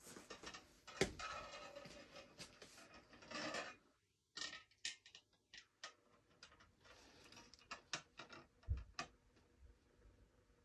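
Clicks and light rattles from a display turntable slowly turning a leather championship belt, dense and clattering for the first few seconds, then scattered single clicks.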